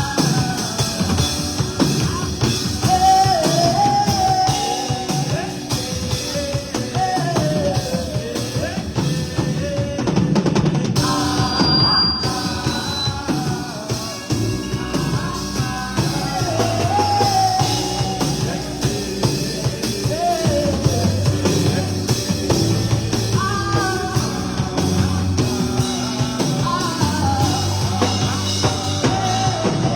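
Upbeat live worship music with a band playing drums and bass under a wavering sung melody.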